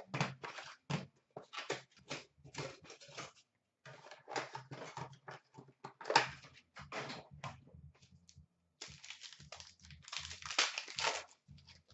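Crinkling, rustling and tearing as a 2017-18 Upper Deck SPx hockey card box and its sealed packs are torn open by hand. It comes in irregular bursts, loudest about six seconds in and again near the end.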